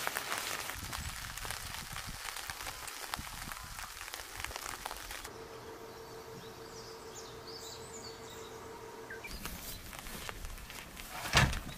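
Fabric groundsheet rustling and crinkling as it is spread and smoothed over a tent floor. Then comes a quieter stretch of outdoor ambience with a faint steady tone, and a single sharp thump near the end.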